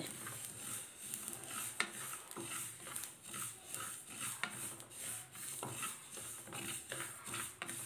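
Mustard seeds being swept around a wide black pan by hand as they finish dry-roasting in the pan's leftover heat after the stove is switched off. The sound is a faint, shifting rustle of seeds over the pan, with a few sharp clicks.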